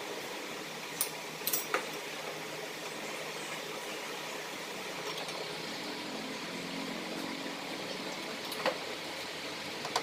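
Steady background hum of a motorcycle workshop, with a few sharp clicks between one and two seconds in and one more near the end.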